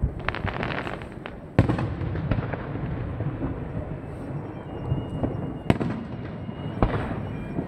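Aerial firework shells bursting: a rapid crackle of many small pops at the start, a sharp boom about one and a half seconds in, the loudest, and two more booms near the end, over a steady low rumble.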